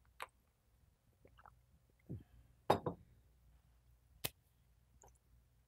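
A few small clinks and knocks of a metal spoon against a glass soup bowl, with quiet mouth sounds of eating soup; the loudest is a double knock a little under three seconds in, and a sharp click comes just past four seconds.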